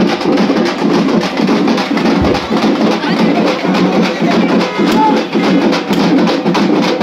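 Loud, fast drumming: a dense run of rapid beats that goes on without a break.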